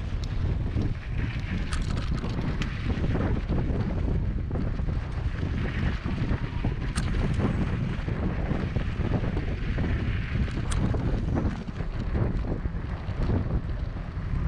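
Wind buffeting the microphone of a camera on a moving bicycle: a steady low rumbling noise, with a few faint sharp ticks scattered through it.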